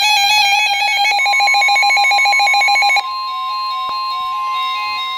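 Electronic alert tones: a loud beeping, stepping melody, joined about a second in by a steady high tone, the warning alarm tone of NOAA Weather Radio. About three seconds in the loud melody cuts off, leaving the steady tone with a softer stepping melody and a single click.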